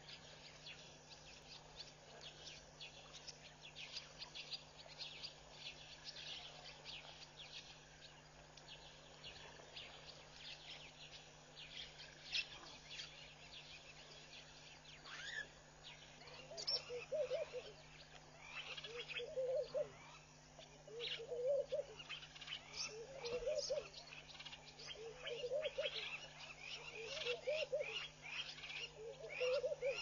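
Knob-billed ducklings peeping, many rapid high-pitched peeps. From about halfway in, a lower call repeats roughly every two seconds.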